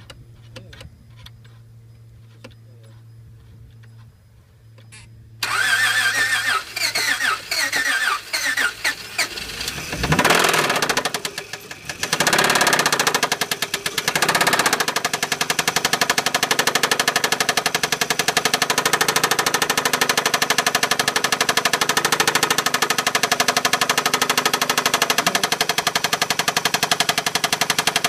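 2004 Honda Accord's 3.0-litre V6 engine being started: a low hum for a few seconds, then the starter cranks it for about four seconds before it catches with a rev. It sags briefly, then runs steadily with a loud, rapid knocking; the engine is hard to start and hard to keep running without throttle.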